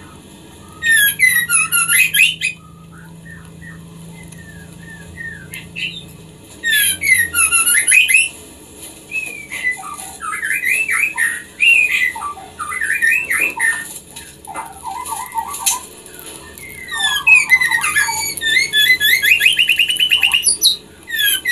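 Female white-rumped shama in breeding condition calling. There are loud bursts of rapid, harsh chattering about a second in, about seven seconds in, and again for several seconds near the end, with varied whistled and chirped phrases between them. This is the call of a female in heat that invites a male to mate.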